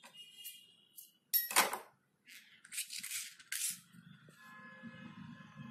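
Scissors snipping and yarn being handled: a series of short, sharp snips and rustles, the loudest about a second and a half in. A steady droning hum sets in near the end.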